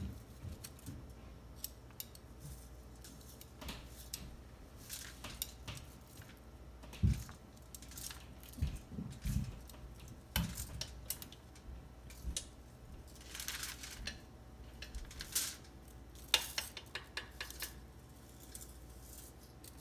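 Metal kitchen tongs clicking shut and clinking against a ceramic plate as salad slices are picked up and laid on pita bread: scattered light clicks and short scrapes, irregular throughout.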